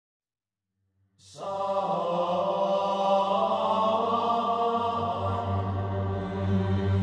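Silence for about a second, then chant-like choral music starts: held sung notes over a low, steady drone.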